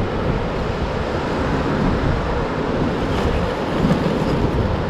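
Steady wash of ocean surf with wind rumbling on the microphone.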